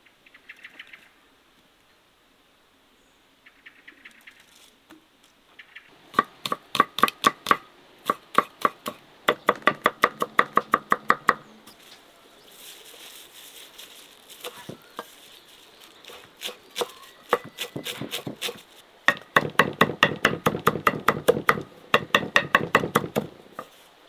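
A cleaver chopping fresh parsley on a thick wooden chopping board: fast, sharp strokes of about five a second, in several runs with short pauses, starting about six seconds in.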